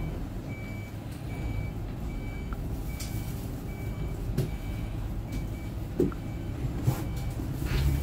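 A warning beeper on a King Long battery-electric low-floor city bus, giving high, even beeps about twice a second over the bus's low rumble, with a few knocks and clicks between them.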